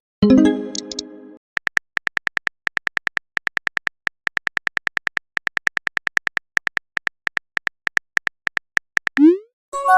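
Synthetic phone-messaging sound effects. A chime rings out and fades at the start. Then a long run of rapid, even keyboard-tap clicks plays as a message is typed. Near the end a short rising swoop is followed by a second chime.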